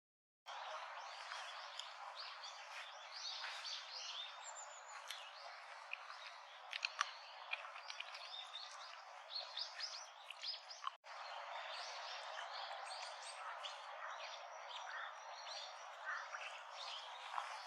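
Wild birds chirping and calling: many short, high chirps and whistles over a steady outdoor hiss. The sound drops out for a moment near the start and again about eleven seconds in.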